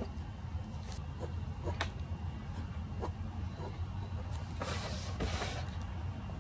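A pen working on paper: a few light taps and clicks, and about four and a half seconds in a scratchy rub lasting about a second, over a steady low hum.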